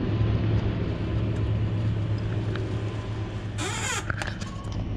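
Steady low engine hum, with a short burst of hiss about three and a half seconds in.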